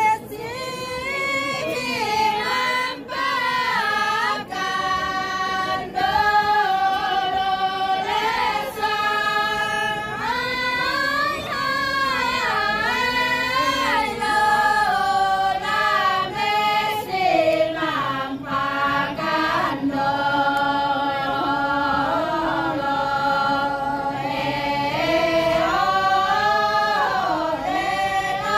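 A group of Toraja women singing a pa'katia chant together without instruments: long held notes that glide slowly up and down in one voice, with brief pauses for breath between phrases.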